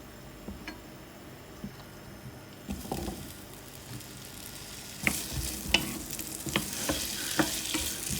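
Food sizzling in a frying pan, with sharp clicks and taps of a utensil against the pan. The sizzle comes in about five seconds in and grows louder.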